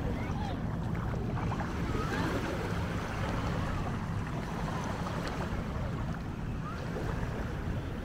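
Steady beach ambience: waves washing ashore, with wind rumbling on the microphone.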